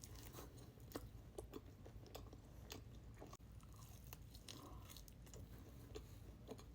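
Faint close-up chewing of a bite of chocolate dessert pizza: irregular small clicks and smacks of the mouth, several a second.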